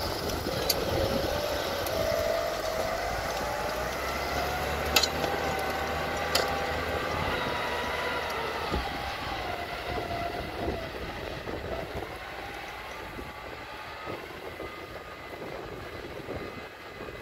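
Farm tractor diesel engines running under load while pulling tillage implements, with a whining tone that rises and falls in pitch. A couple of sharp clicks come around the middle, and the sound gradually fades as the nearer tractor moves away.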